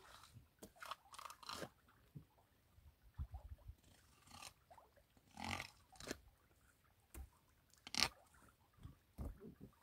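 Scattered wet crunching and scraping as a knife works into a freshly caught yellowfin tuna's head on the wooden deck, with a sharp knock about eight seconds in.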